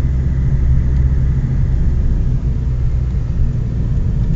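Inside the cabin of a BMW M6, its V10 engine running at a steady pace: a low drone with road rumble and no revving.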